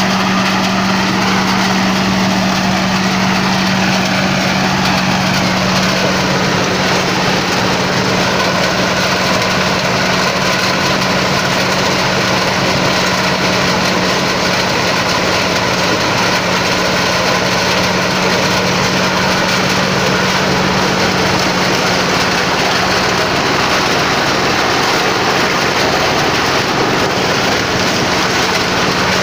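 Motorised corn sheller running steadily, its engine humming at a constant pitch under a dense mechanical clatter of the threshing drum.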